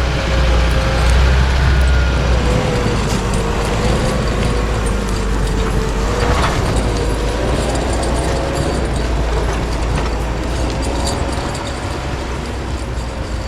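Heavy logging truck's engine running with a deep rumble and a steady droning whine that drifts slightly up and down in pitch.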